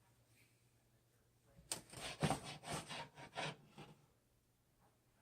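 A utensil scraping and knocking in a skillet of frying banana slices: five or six short strokes starting about a second and a half in, after a quiet start.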